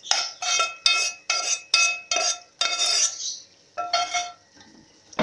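Slotted metal spoon knocking and scraping against steel cookware as scrambled egg is pushed off into the pot. There are about eight quick ringing clinks in the first three seconds and one more near four seconds.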